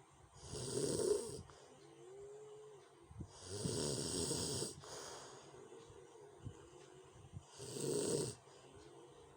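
A sleeping person snoring rough and loud: three rasping snores, about three to four seconds apart, with a faint whistling tone in the breaths between them.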